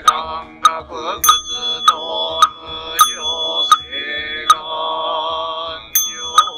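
Japanese Buddhist sutra chanting by a group in unison, kept in time by steady strokes on a wooden fish drum (mokugyo), about one and a half strokes a second. A small bowl bell (rin) is struck about a second in and again near the end, and rings on under the voices.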